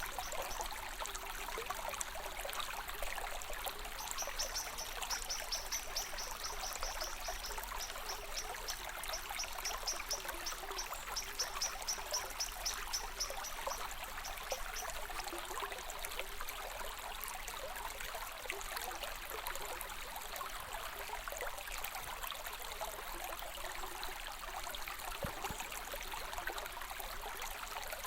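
A stream trickling and babbling steadily over stones. From about four seconds in until about fifteen seconds, a high, rapid chirping repeats over the water.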